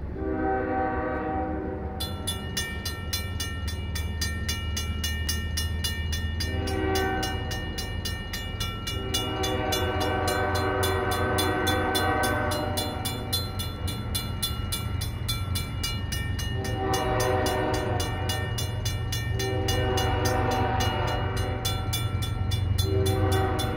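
A freight train's air horn sounds repeated long chord blasts for the crossing over the steady low rumble of the approaching train. About two seconds in, the crossing's mechanical signal bell starts ringing in a quick, even beat and keeps on.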